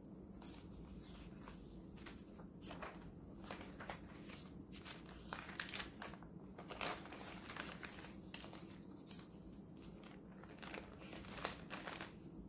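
Pages of a handmade paper junk journal being turned and handled: soft, irregular paper rustles and flutters.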